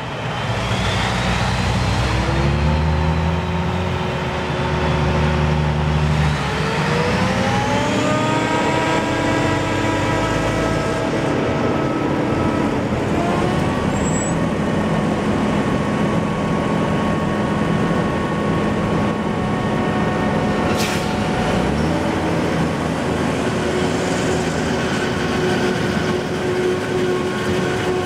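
Claas Jaguar 960 forage harvester chopping maize, with a Fendt tractor and silage trailer running alongside. A steady, loud engine drone carries whining tones that rise in pitch about six seconds in and step up again near the middle.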